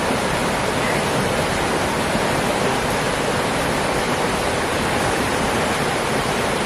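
River water rushing in a steady, unbroken roar.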